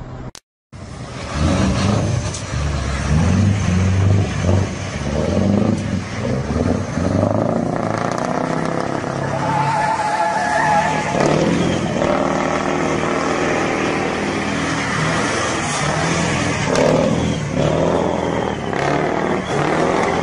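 Semi-truck tractor unit's diesel engine revving hard and unevenly as the truck spins in tight circles, tyres spinning with smoke. The sound starts abruptly after a short silent gap about half a second in.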